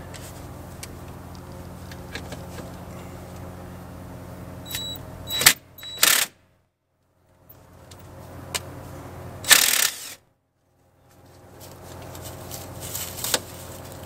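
Cordless quarter-inch impact driver run in two short bursts, about five and a half and nine and a half seconds in, loosening a fastener on the engine bay; a steady low hum runs underneath.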